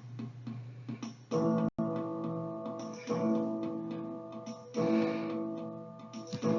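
Instrumental background music of strummed chords that ring out, a new chord about every second and a half, with a momentary dropout a little under two seconds in.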